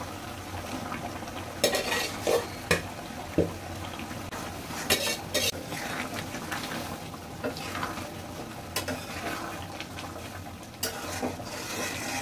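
A steel spatula stirring and scraping in a pan of sizzling curry as fried vegetable pieces are mixed in, with scattered clicks of the spatula against the pan over a steady sizzle.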